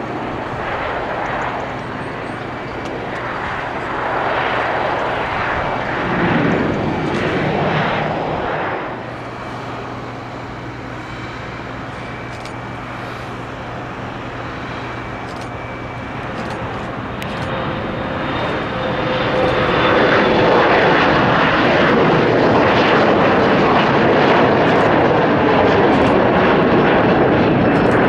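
A Dash 8 Q400 turboprop running after touchdown. About nine seconds in, the sound cuts to an Embraer E175 jet taking off: its turbofan engines grow from a low rumble to loud and steady take-off power from about twenty seconds in.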